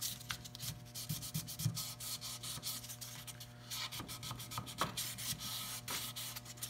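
400-grit sandpaper rubbed by hand over the freshly varnished wooden hull of a half model, in quick short strokes: a light scuff-sanding between coats of varnish.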